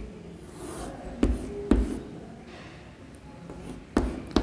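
Chalk on a blackboard while boxes are drawn: four sharp taps, two a little after a second in and two near the end, with faint scratching between.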